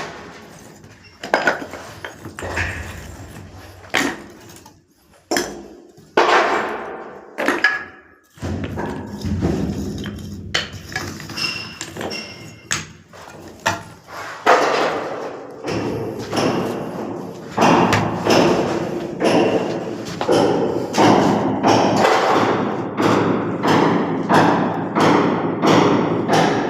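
Repeated knocks and thuds of hand tools striking mortar and tiles during masonry work: scattered at first, then coming faster and more evenly, about two a second, from about halfway through.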